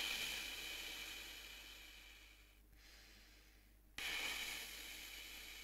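Air blown out through relaxed lips with the teeth together, a brass player's breath attack with no lip buzz or note. Two long breaths, each starting suddenly and fading away: the first is dying out in the opening seconds, and the second begins about four seconds in.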